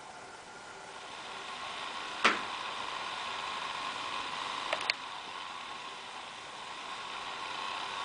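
Acer Aspire 5755G laptop's cooling fan blowing hard through its side vent: a steady whir with a faint whine, which swells about a second in. The owner found the fan unbearably loud and treated it as a defect. A sharp click a couple of seconds in and two small clicks later stand out above the fan.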